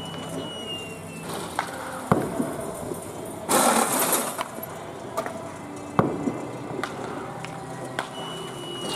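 Scattered sharp knocks and cracks of baseball practice over a steady low mechanical hum, with a loud rushing burst of noise lasting under a second about three and a half seconds in.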